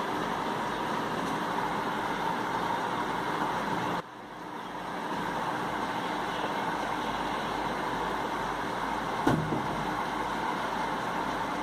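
Steady background hum and hiss. It drops suddenly about four seconds in and swells back within a second or two, and there is a single sharp knock about nine seconds in.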